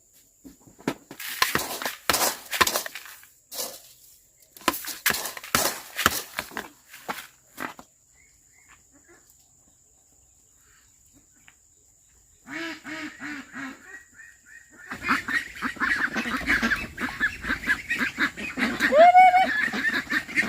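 A run of sharp knocks and clatter, then a few seconds of near quiet, and from about twelve seconds in a flock of domestic waterfowl calling, many overlapping calls that grow louder near the end.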